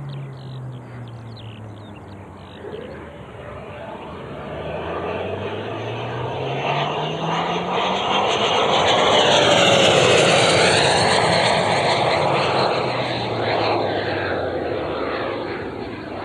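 Electric ducted-fan RC jet (JETFAN-130 fan) flying: its rushing whine builds to a loud close pass about ten seconds in, then fades as it climbs away.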